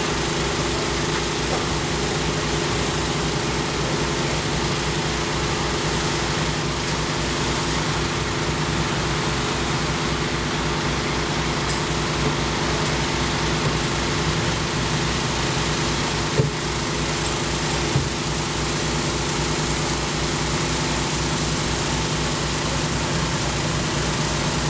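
An engine running steadily with an even low throb and a wash of noise; two short knocks come about two-thirds of the way through.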